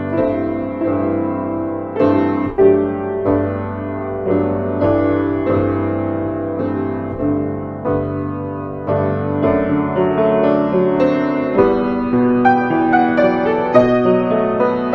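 Solo piano playing slow, chordal music, each struck chord ringing on; the notes come more quickly near the end.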